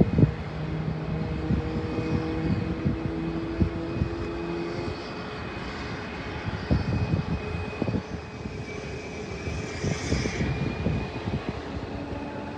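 Aircraft engines running with a steady high whine over a low hum, with irregular low thumps underneath.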